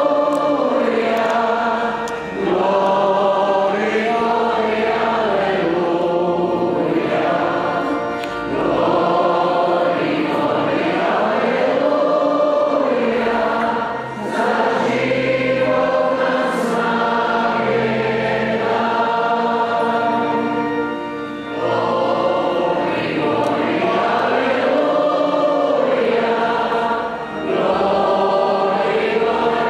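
A group of voices singing a hymn together, phrase by phrase, with a short break about every six seconds.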